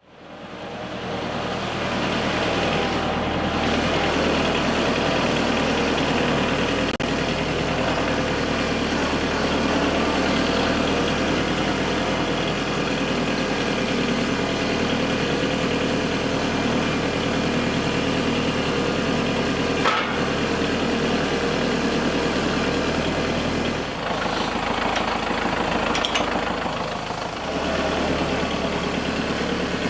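An engine running steadily, fading in at the start, with its low note dipping and shifting about 24 seconds in and again near 27 seconds.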